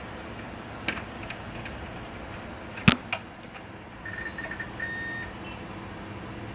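Multimeter continuity beeper sounding in short broken beeps, then a brief steady tone, as the probes touch a capacitor on a laptop motherboard: the rail is still shorted. A few sharp clicks of the probes on the board come first.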